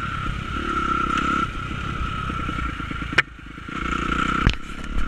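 Dirt bike engine running under way, with a sharp knock about three seconds in, after which the engine briefly drops off before picking up again, and a second knock about a second later.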